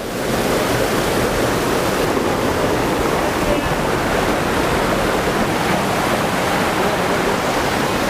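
Steady rushing of a mountain creek's flowing water.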